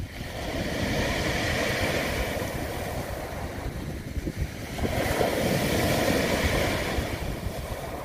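Sea surf breaking and washing up the beach. Two waves surge in, one about half a second in and another about five seconds in, each swelling and then easing off.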